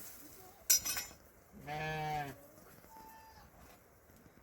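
Sheep bleating: one clear bleat lasting about half a second, a little under two seconds in, and a faint higher call about a second later. A short sharp noise comes just before the first bleat.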